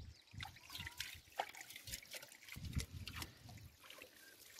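Faint trickling and small splashes of water in a shallow stream as a steel plate is rinsed by hand, the splashes coming irregularly every half second or so.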